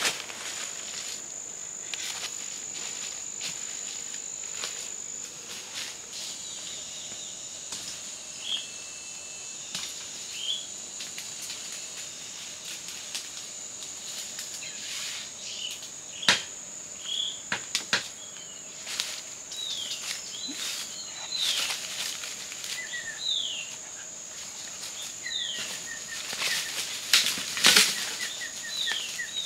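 Forest ambience: a steady high insect drone, short falling bird chirps from about a third of the way in, and crunching and snapping steps in dry leaves and bamboo litter, loudest near the end.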